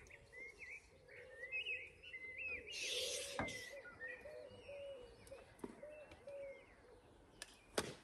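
Birds singing outdoors: quick bending chirps in the first few seconds, then a run of low repeated notes. A short hiss about three seconds in and a few sharp knocks break in.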